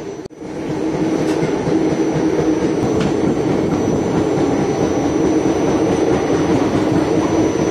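Maurya Express passenger coach running at speed, heard at the open doorway: a steady rumble and rattle of the wheels on the rails.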